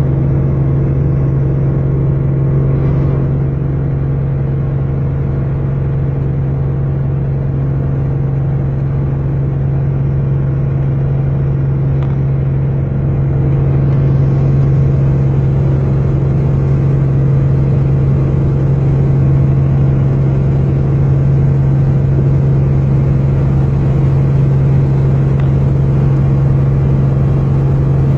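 Helicopter engine and rotors droning steadily, heard from inside the cabin in flight, with a strong low hum. It grows a little louder and hissier about halfway through.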